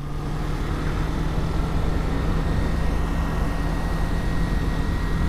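Yamaha MT-03's parallel-twin engine running at steady revs under way, over a steady rush of wind noise.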